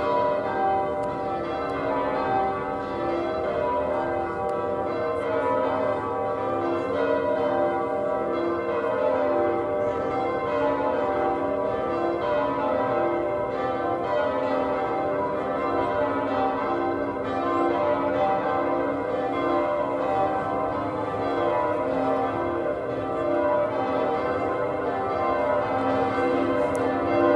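Wells Cathedral's church bells being rung in change ringing by practising bell ringers: a continuous, even stream of overlapping bell strokes.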